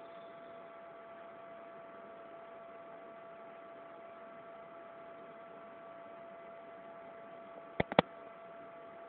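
Steady electrical hum with a faint hiss underneath, holding a few constant tones. Near the end come two sharp clicks a fraction of a second apart.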